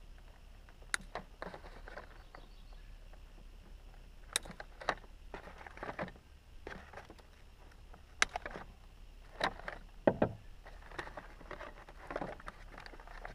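Unpacking a bike seatpost from its cardboard box: irregular clicks, taps and short rustles of cardboard inserts and plastic packaging being handled.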